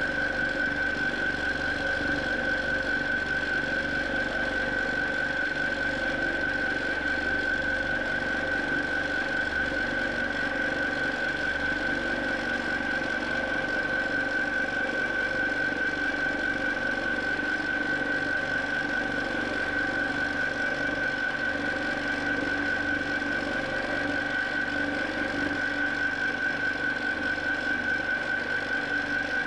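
Q'nique 19 longarm quilting machine running steadily while free-motion stitching, a constant motor hum with a steady high-pitched whine over it.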